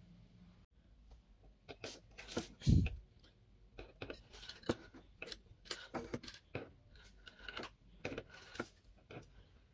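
Irregular clicks, taps and short crinkling scrapes of small hard objects or plastic being handled, with one louder thump about three seconds in.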